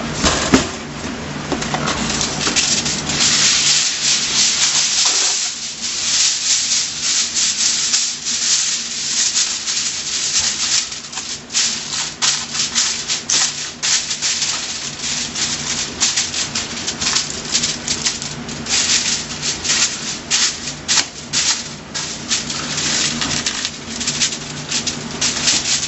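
Sheet of aluminium foil crinkling and rustling as it is spread and pressed over a baking pan, a long run of crackles with many sharp crinkles.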